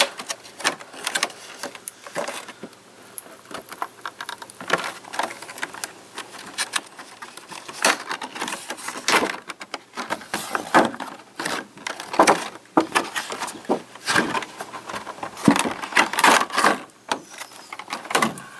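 Toy packaging being opened by hand, its insert slid out and its plastic parts handled: irregular rustling, scraping and clicking.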